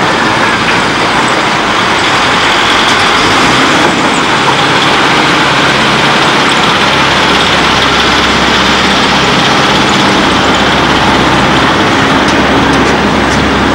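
Caterpillar D5N LGP crawler bulldozer's diesel engine working steadily under load as it pushes soil with its blade, a loud and continuous mechanical noise.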